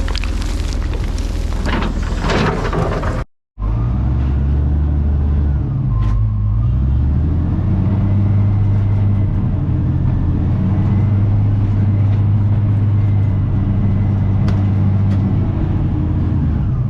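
Diesel engine of heavy earthmoving equipment running steadily under load. For the first three seconds a noisier stretch full of crackles plays before an abrupt cut, then the engine drone carries on steadily.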